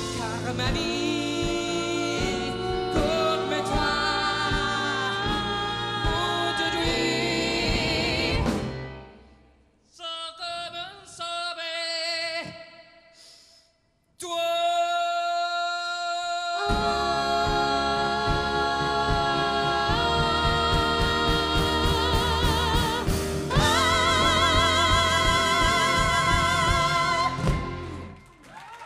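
Live band (piano, drums, guitar, bass) with a lead singer and two female backing singers holding long notes with vibrato. About eight seconds in the band drops out, leaving the voices alone in harmony. After a brief silence the full band comes back in for a long final held chord that ends near the end.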